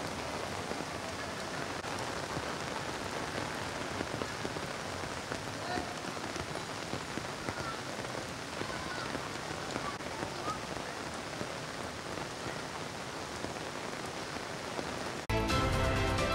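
Heavy rain pouring onto a flooded street, a steady even hiss. About a second before the end it cuts off suddenly to a louder music jingle.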